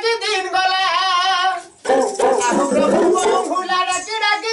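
A high voice singing, holding long notes with a wavering vibrato, breaking off briefly just before two seconds in, then singing on in a busier line.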